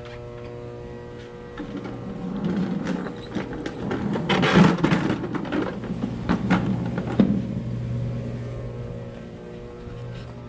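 A wheeled plastic mop bucket being rolled across the floor: a rough rolling rattle with several knocks, the loudest in the middle, over a steady hum.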